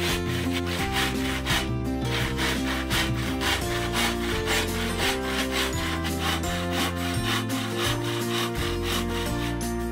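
Handsaw cutting through a bamboo tube in steady back-and-forth strokes, about two a second, over background music.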